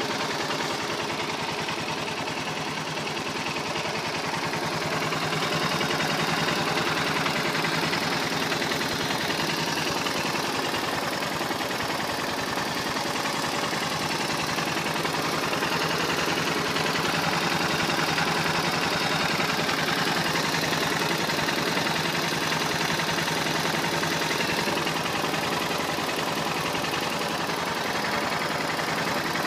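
Engine idling steadily with a fast, even ticking rattle, which the owner suspects comes from the cam chain.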